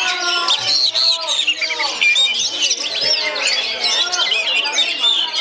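Oriental magpie-robins (kacer) singing continuously, a dense tangle of rapid whistles and chattering phrases, with several birds overlapping.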